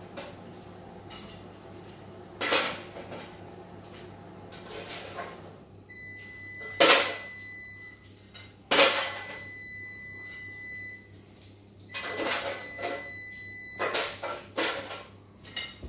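Metal tongs clattering and scraping against a metal baking tray and china plates as food is served, in separate knocks with the loudest about halfway through. A faint steady high tone comes and goes in the middle.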